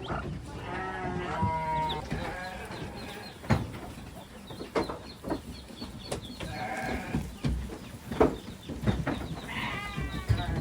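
Goats bleating: three quavering calls, about half a second in, around six and a half seconds in and near the end. Between them come a couple of sharp knocks.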